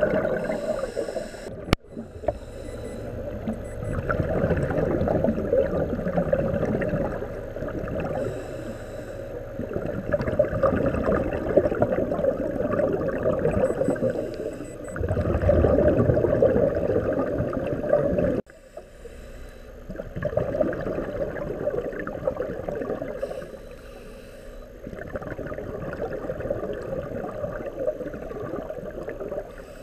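A scuba diver's regulator exhaust: exhaled air bubbles gurgling in surges every few seconds, heard through an underwater camera housing.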